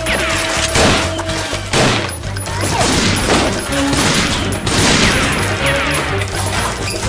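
Rapid, repeated volleys of shots from Nerf foam-dart blasters, with several falling whizzing sweeps, over background music with a steady bass beat.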